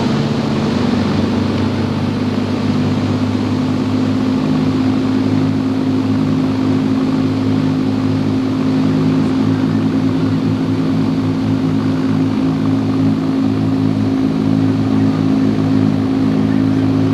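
Lockheed Super Constellation's Wright R-3350 radial piston engines, heard inside the cabin as a steady propeller drone. The pitch steps up slightly about a second in.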